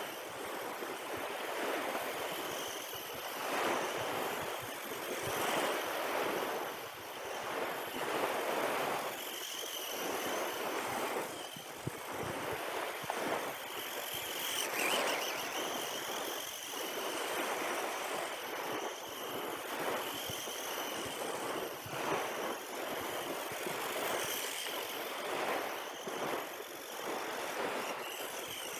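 Radio-controlled car running on beach sand, its small motor whining and swelling louder and quieter every second or two as it speeds up and slows down.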